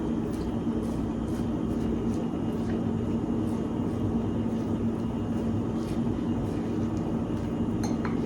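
Steady machine hum with a constant low tone running through, like a kitchen fan or air conditioner. Over it come a few faint, scattered clicks and scrapes of a spoon mixing diced pico de gallo vegetables in a bowl.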